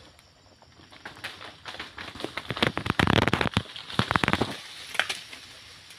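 Dry oil palm fronds and leaves crackling and snapping in irregular bursts, densest a little past halfway, as fronds are cut and pulled through the crown by a long-handled harvesting sickle.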